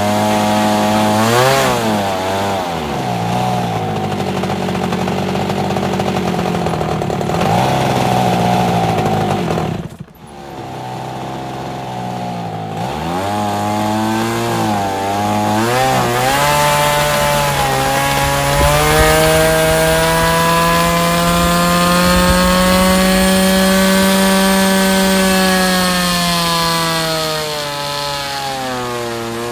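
Nitro glow engine of a large RC Spitfire model running on its first test, its pitch dipping and rising as the throttle is worked by hand through a makeshift linkage. It drops away sharply about ten seconds in, then picks up again and climbs into a long, slow rise and fall in revs near the end.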